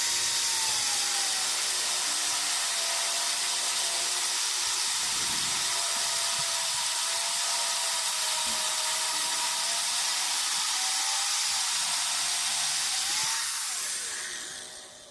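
Electric angle grinder grinding metal: a loud, steady hiss with a motor tone that drops as the disc is pressed in. About 13 seconds in, the tone rises again as the load comes off, then the grinder winds down near the end.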